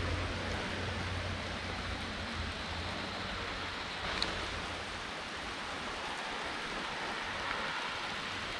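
Steady hiss of rain falling, with a low rumble in the first few seconds that fades away and a short high tick about four seconds in.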